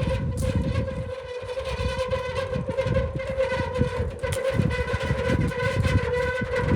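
Mammotion Luba 2 AWD robotic lawn mower running, its electric blade motor giving a steady high whine, over an uneven low rumble.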